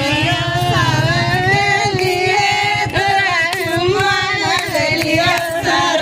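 Several women singing a song together, their voices holding and gliding between notes: a traditional song sung during the wedding ritual.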